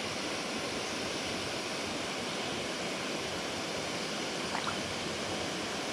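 Steady rushing of water pouring through a large dam spillway, an even roar of falling and churning water at a constant level.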